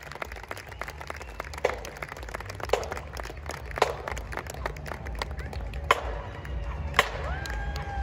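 Marching band percussion keeping time between songs: single sharp clicks about once a second, like drumstick or rim clicks, over a low street rumble. Near the end a short held tone sounds.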